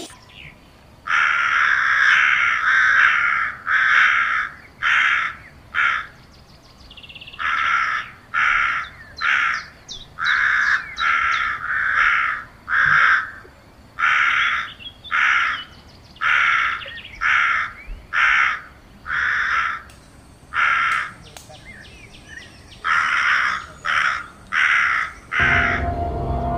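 Crows cawing over and over: loud, harsh calls coming in runs of several, with short gaps between. Music begins near the end.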